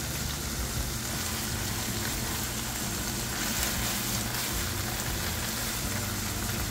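Browned ground beef sizzling steadily in a skillet while a wad of paper towel is pressed into the hot grease to blot it up.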